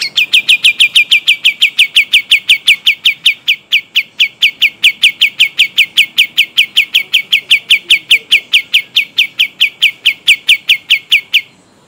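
Kapas tembak songbird singing a long rapid roll: a single unbroken run of sharp, downward-slurred whistled notes, about six a second, that stops abruptly near the end.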